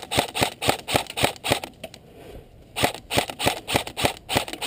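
Airsoft rifle firing a rapid string of semi-automatic shots, about five or six sharp clicks a second, pausing for about a second and then firing another string.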